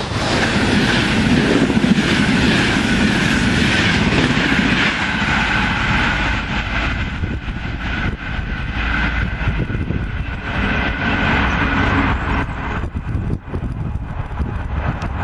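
Intercity passenger coaches rushing past at speed, their wheels clattering over the rails. The high rush fades after about six seconds as the train draws away, leaving a lower rumble with repeated wheel clicks.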